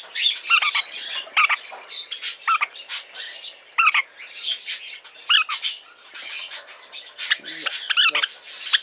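Lineolated parakeet chick giving rapid, repeated harsh squawking chirps, the begging calls of a hand-fed chick still eating.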